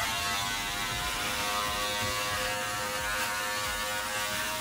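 Electric beard trimmer running with a steady buzz as it is drawn over the neck, trimming away the hair below the beard line.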